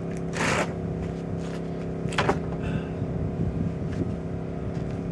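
A small engine running steadily with an even hum, with two short rushing noises, one about half a second in and one about two seconds in.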